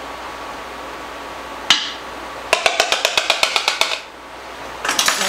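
Metal measuring spoon knocking against a small bowl while thick oyster sauce is knocked and scraped off it. There is one sharp tap about two seconds in, then a quick run of about a dozen clinks in a second and a half, and a short scrape near the end.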